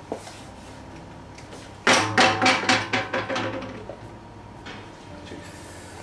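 Heel-nailing machine driving nails from inside the shoe into the heel: a quick run of sharp metallic strikes with a ringing edge, about five a second for roughly two seconds, tapering off.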